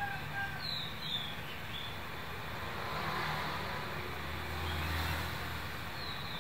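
Quiet background: a low vehicle rumble that swells and fades about four to five seconds in, with a few short bird chirps, two about a second in and one near the end.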